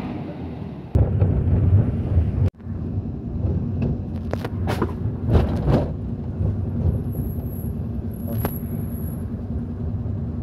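Low, steady rumble of vehicle engine and road noise from a moving vehicle. It jumps abruptly louder about a second in and drops out briefly at about two and a half seconds.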